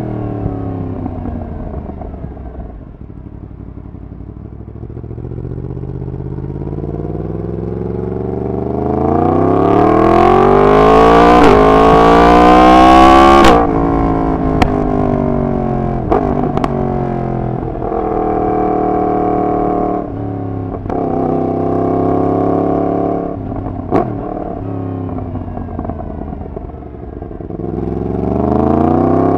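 Yamaha MT-10's crossplane inline-four through a decat full exhaust system, under way. The revs sink at first, then climb in one long pull to their loudest about halfway and drop away abruptly. The engine then rises and falls several more times, with a few sharp clicks, and climbs again near the end.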